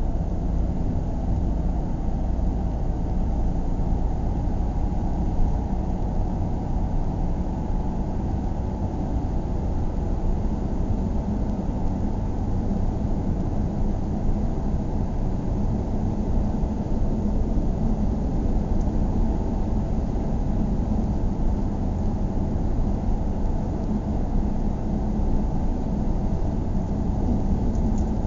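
Steady low road and engine rumble heard from inside a moving car's cabin, with a faint low hum settling in about a third of the way through.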